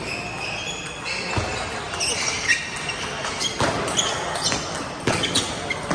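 Table tennis rally: the ball clicking sharply off the rackets and the table, about eight hits in under six seconds, echoing in a large hall.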